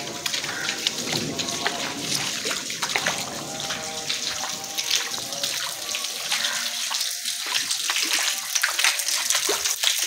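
Rainwater running in a shallow sheet along a flooded concrete lane: a steady rushing of water with many small splashes and drips. The flooding comes from standing rainwater that has no drainage to carry it off.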